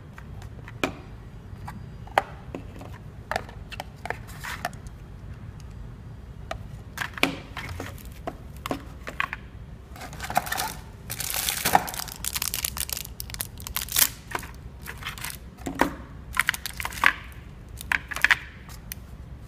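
Plastic and cardboard packaging handled and unpacked: scattered sharp clicks and taps, with a longer stretch of crinkling plastic a little past halfway, over a low steady hum.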